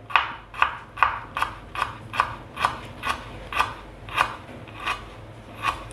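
Kitchen knife slicing ginger into thin strips on a wooden cutting board: a steady run of about a dozen knife strokes, roughly two a second, each a sharp knock of the blade on the wood, coming further apart near the end.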